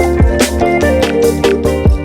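Music with a steady drum beat, about two to three hits a second, over a bass line and melodic notes.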